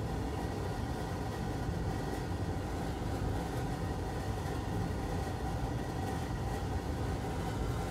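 Steady low hum with a light hiss: constant background machine or room noise, with no distinct clicks or events.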